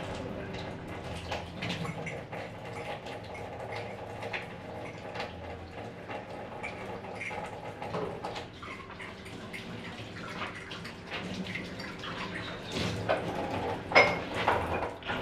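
Tap water running into a kitchen sink while dishes and cups are washed, with frequent light clinks and a few louder clinks near the end.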